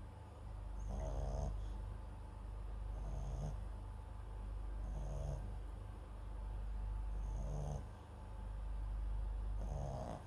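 A sleeping Papillon × Japanese Chin mix dog snoring close to the microphone, with a snore about every two seconds, five in all, each carrying a faint high whistling note.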